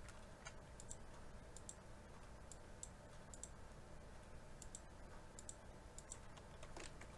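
Faint computer mouse clicks, scattered and often in quick pairs, over a low steady hum of room tone.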